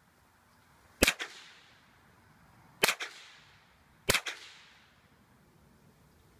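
Three gunshots at an uneven pace, about one, three and four seconds in, each sharp crack followed a fraction of a second later by a weaker echo.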